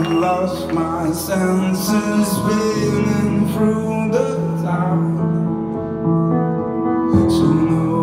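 Live pop band playing, with sustained chords that change every few seconds.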